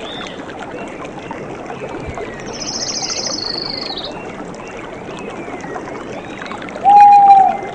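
Outdoor nature ambience: a steady rushing background like flowing water, with wild animal calls over it. A high, rapid trill runs for about two seconds, and near the end comes one loud whistled note.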